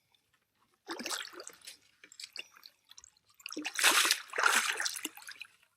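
Water splashing in two bursts, a short one about a second in and a louder, longer one from about three and a half seconds: a redfish thrashing at the surface as it is scooped into a landing net.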